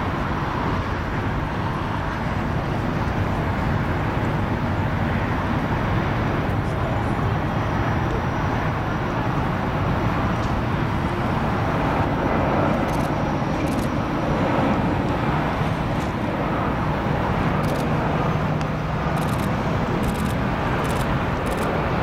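Steady outdoor rumble of an Airbus A320neo's Pratt & Whitney geared turbofan engines on final approach, blended with a background hum like road traffic, with no distinct events.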